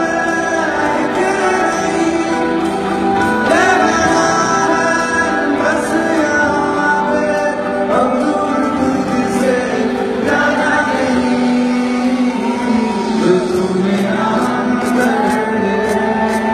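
Live concert music: a male singer singing at a microphone over acoustic guitar and band, picked up from the audience over the venue's sound system.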